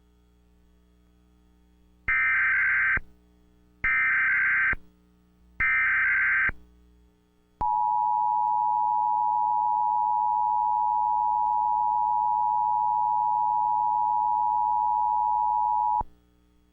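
Emergency Alert System test signal: three short bursts of SAME digital header data, about a second apart, then the steady two-tone EAS attention signal (853 and 960 Hz) for about eight seconds, which cuts off sharply.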